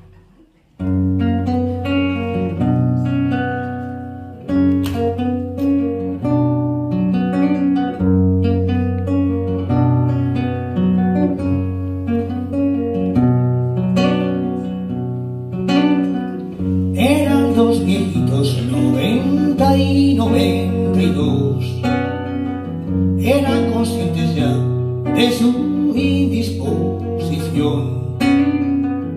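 Acoustic guitar played solo, coming in about a second in with picked notes over a steady bass line. A man's singing voice joins over the guitar a little past halfway.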